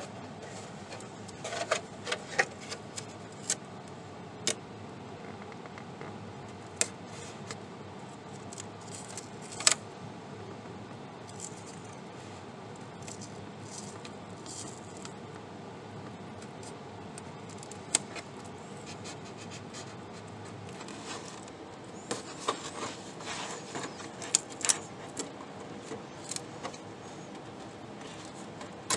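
Scattered sharp clicks and crackles of a thin plastic RC truck body being handled while masking tape is laid and pressed onto it, over a steady hiss.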